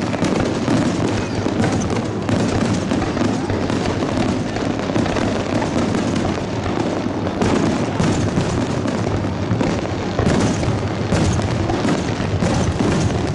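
Aerial firework shells bursting in a dense barrage, many booms and bangs overlapping with no pause between them.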